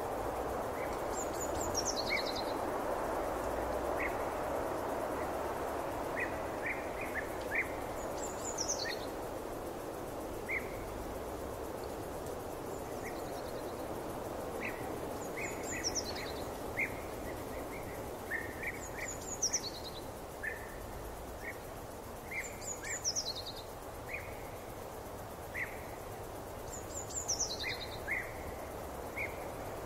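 Forest ambience: a steady soft rush with birdsong over it. One bird repeats a high, falling phrase about every three to four seconds, while short chirps come scattered throughout.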